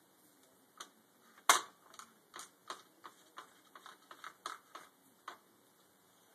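Irregular series of small, sharp clicks and taps from hand work laying vinyl rivet strips onto a model's flap, about a dozen in all, with one louder click about one and a half seconds in.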